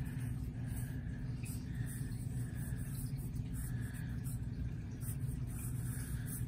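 Permanent marker drawing short strokes on paper, a handful of faint scratches about half a second each, over a steady low hum.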